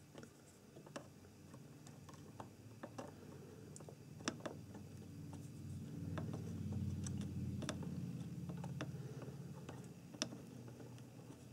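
Faint, scattered small clicks and ticks as IC pins are hand-soldered with a soldering iron and solder wire on a circuit board, about a dozen irregular clicks in all. A low hum swells up through the middle and fades again.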